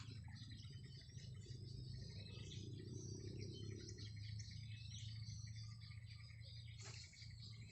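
Outdoor ambience of birds chirping and an insect trilling steadily, over a faint low hum.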